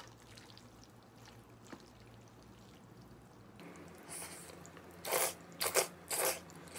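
Jjajangmyeon noodles being slurped: a few loud, wet slurps starting about four seconds in, three of them in quick succession near the end. Before them, the soft sticky sound of the sauced noodles being stirred with chopsticks.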